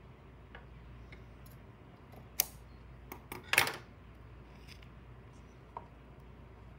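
Scissors snipping yarn and being handled on a tabletop: a few short, sharp clicks, the loudest about three and a half seconds in.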